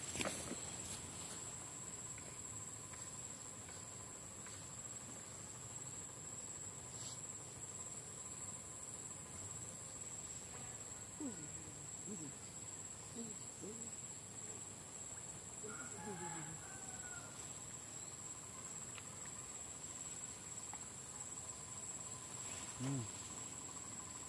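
Steady high-pitched drone of insects, crickets or similar, with a few faint short calls partway through.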